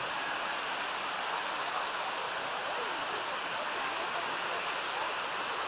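Steady rushing of water pouring down the waterfall cascade of the Dzhegosh creek.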